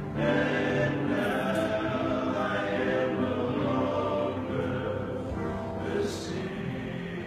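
A group of men's voices singing together in harmony, a choral church song.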